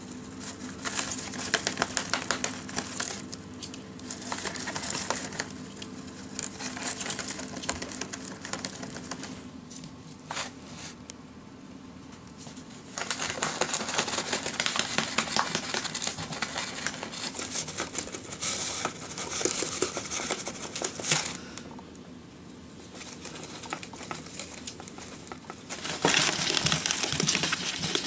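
Rabbits chewing and pulling at brown paper wrapped around a chew toy: crinkling, rustling and tearing paper in spells, with quieter pauses about ten seconds in and again a little after twenty seconds.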